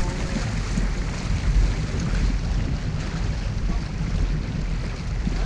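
Wind buffeting the microphone over the steady rush and splash of water along the hull of a sailing yacht under way.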